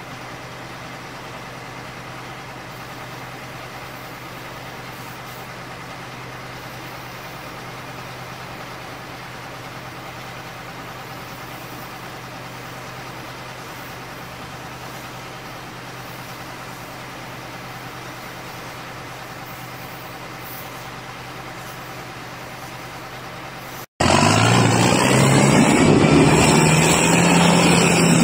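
Tractor diesel engine running steadily under load as the tractor pushes through deep mud. About 24 seconds in, the sound cuts to a much louder tractor engine revving up, its pitch rising.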